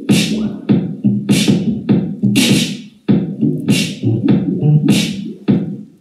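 Wisdom Share smart TV's built-in speakers playing a song with a punchy beat: sharp hits about twice a second over a low bass line. The music cuts off suddenly at the end as playback is paused.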